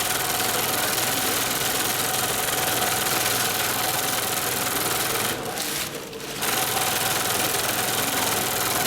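Dürkopp Adler 72525-101 long-arm industrial zigzag sewing machine running at speed, stitching steadily. It pauses briefly about five and a half seconds in, then starts stitching again.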